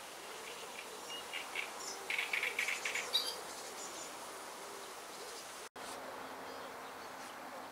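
Faint outdoor ambience with a brief run of quick, high chirps between about one and three seconds in.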